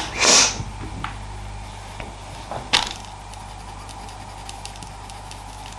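Brief handling noises from drawing supplies: a short rustle right at the start and a shorter knock nearly three seconds in, then only a low steady hum.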